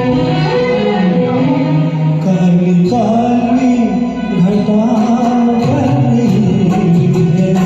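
A man singing a Hindi film song over a karaoke backing track, his voice held and wavering on long notes.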